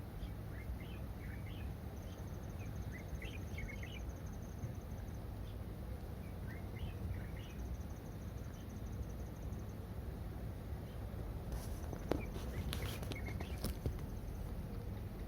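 Outdoor ambience: small birds chirping in short calls and a high, rapid trill heard twice, over a steady low background rumble, with a few sharp clicks near the end.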